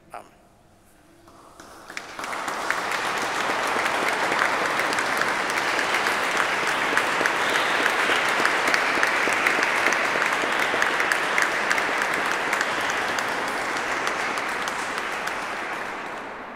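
Applause: a few scattered claps at first, swelling into steady clapping about two seconds in, then fading out near the end.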